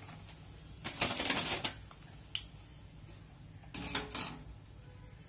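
Steel wire skimmer clattering as crisp fried pakoras are tipped off it, in two short bursts, about a second in and again near four seconds.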